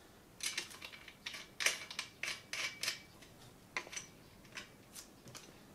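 Light metallic clicks and scrapes of a training-wheel bracket and axle nut being handled and hand-tightened on a kids' steel bike's rear axle. The clicks come thick for the first three seconds, then a few scattered ones.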